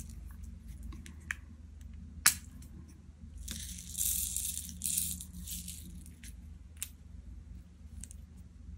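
Scattered light clicks and taps, then about two seconds of rattling and rustling in the middle: small acrylic diamond-painting drills being handled in their bag and tray.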